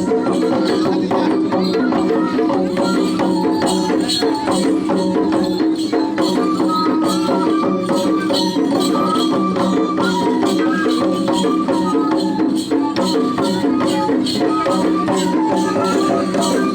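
Dance music: a melody over a steady drone, with shaken rattles keeping a fast, dense beat throughout.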